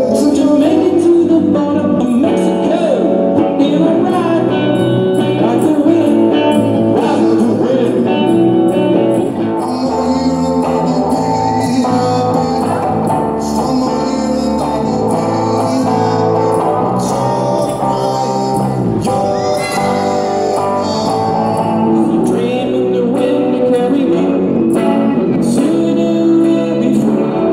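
Soft-rock (yacht rock) song played on guitars with a man singing.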